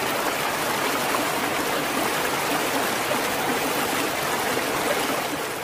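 A shallow stream rushing and splashing steadily over rocks, a constant even wash of water noise that begins to fade near the end.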